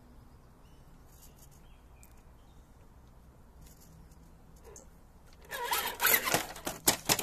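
RC rock crawler climbing a rock face. Quiet at first; from about five and a half seconds in comes a rapid, loud run of scraping and rasping as the tires scrabble and slip on the rock.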